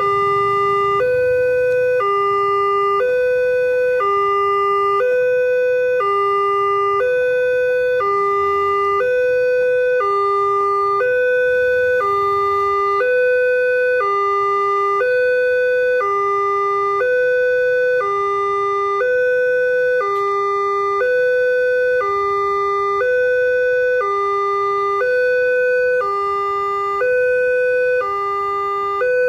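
Railway level crossing warning alarm: a loud electronic two-tone signal that switches between a lower and a higher tone about once a second, without a break. It is the sign that the crossing is active and the barrier is down for an approaching train.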